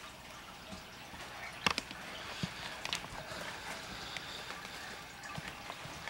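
Low hiss with a few light knocks and clatters, the loudest nearly two seconds in, as a baby handles a long-handled broom.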